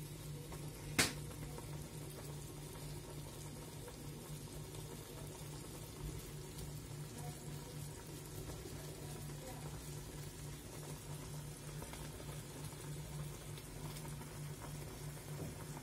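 Dried-prawn coconut curry bubbling at a full boil in a metal pot, in the last minutes of cooking. A steady low hum runs beneath it, and there is one sharp click about a second in.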